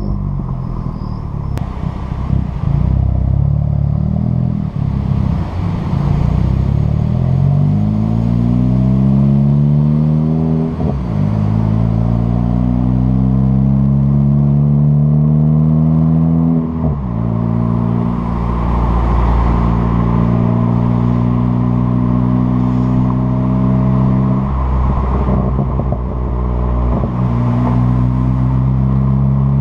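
Tuned, big-turbo 2013 Ford Focus ST 2.0-litre EcoBoost four-cylinder through a catless downpipe and MBRP cat-back exhaust. Off throttle over the first few seconds, its note falls with overrun pops and crackles from the tune. It then pulls up through the gears, the pitch dropping sharply at each of about three upshifts.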